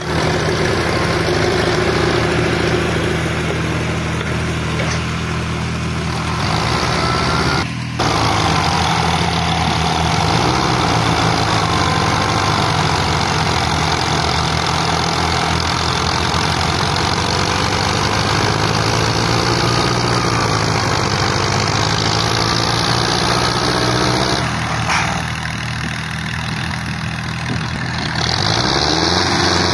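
Belarus tractor's diesel engine labouring hard as it pulls a heavily overloaded trolley, its pitch slowly rising and falling with the load.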